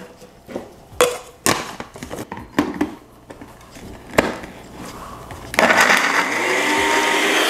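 Personal bullet-style blender running, a loud steady whir as it blends chopped fresh ginger in a little water, starting about five and a half seconds in. Before it starts, a few sharp knocks of the blender cup being handled and set onto its base.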